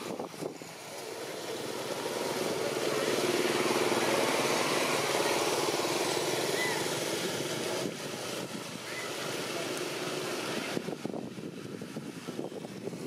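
A motor vehicle's engine going past: its sound swells over the first few seconds and then fades away.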